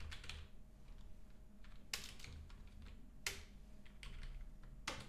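Computer keyboard keystrokes: a few separate key presses spaced a second or more apart, while code is edited in a text editor, over a faint steady low hum.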